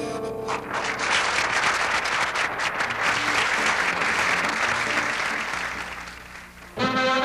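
Applause after a song, rising as the band's last chord dies away about half a second in, then fading out. Theme music starts abruptly near the end.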